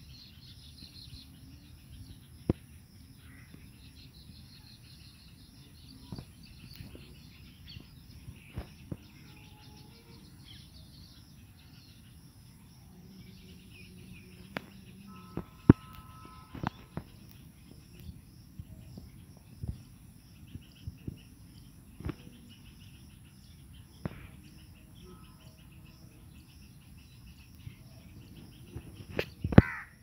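Birds chirping faintly and sporadically over a steady low background noise, with occasional sharp clicks and a louder, brief sound near the end.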